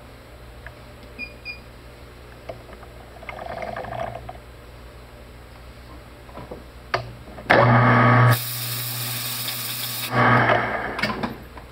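Metal lathe starting up about seven and a half seconds in, then a loud hiss of compressed air blown into the muzzle of the spinning barrel for just under two seconds, with the lathe running on for about a second after. Before that, only a steady low hum and a few light clicks.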